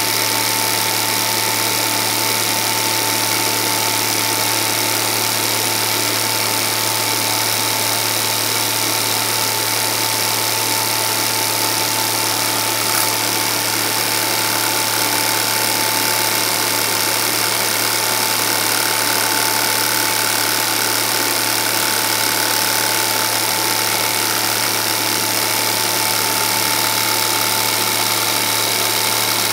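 Home-movie film projector running: a steady mechanical whir with a constant hum and a thin steady whine, unchanging throughout.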